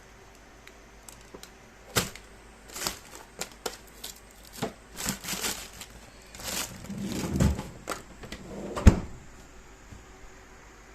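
Things being handled and set down: a series of light clicks and knocks with some rustling, the loudest knock about nine seconds in.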